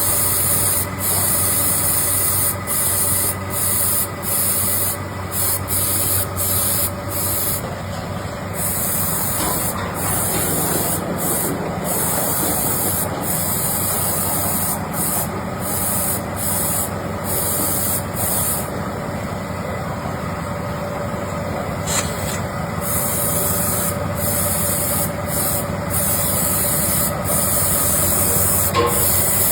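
Workshop machinery running steadily with a droning hum, under a high hiss that switches on and off every second or so.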